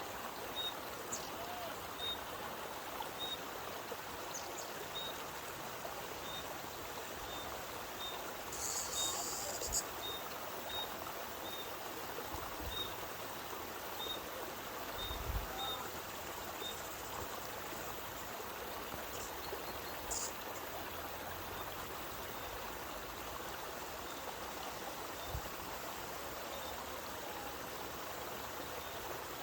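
Spring water flowing steadily out of a mountainside, a continuous stream rush. Through the first half a bird repeats a short high note about once or twice a second.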